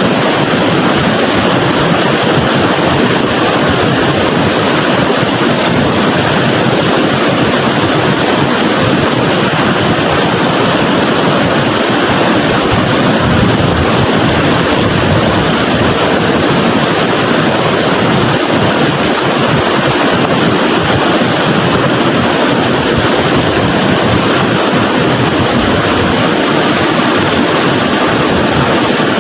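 Floodwater in a swollen river rushing loudly and steadily, an even roar of churning water.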